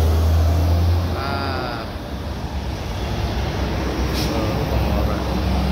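Bus sounding a wavering, sheep-like 'domba' horn about a second in, and again more faintly near the end, over the low running of its diesel engine.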